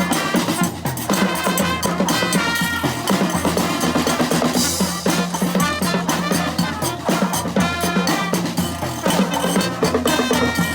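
Brass band playing live: horns over a busy drum beat with snare and bass drum, and a steady bass line underneath.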